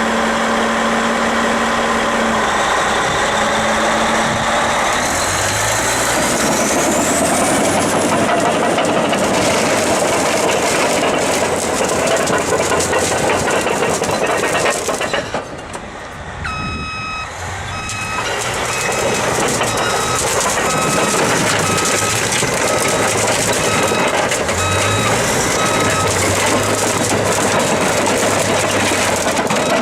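Heavy diesel machinery running under load, a loud steady engine and mechanical din, with a reversing alarm beeping at a regular pace through the second half.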